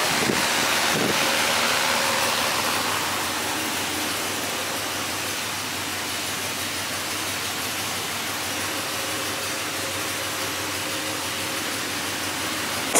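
Steady rushing noise with a faint steady hum beneath it, a little louder in the first three seconds.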